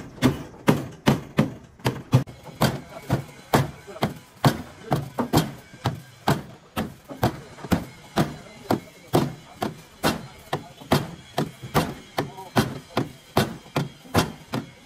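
A hammer striking over and over at a steady pace of about three blows a second, some blows harder than others. The rhythm keeps going without a break, then cuts off suddenly at the end.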